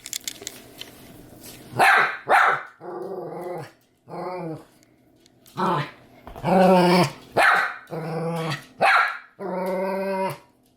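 Miniature Australian Shepherd barking and vocalizing: two sharp barks about two seconds in, then a string of drawn-out, pitched whining-grumbling calls alternating with short barks.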